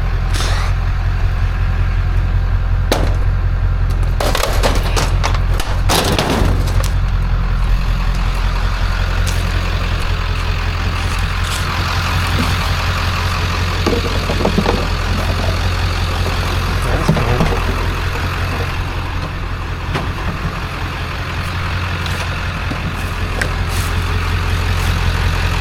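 A vehicle engine idling with a steady low hum. A burst of knocks and clatter comes about three to seven seconds in, with a few lighter ticks later.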